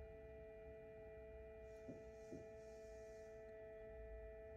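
Faint, steady two-tone hum of a Kebonnixs 12-egg mini incubator's fan running. Two soft ticks come about two seconds in.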